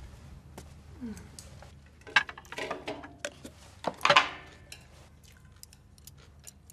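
Light clinks and clatter of chopsticks on a plate and white lunch boxes as food is packed into the boxes, with louder clusters of clatter about two seconds in and again around four seconds in.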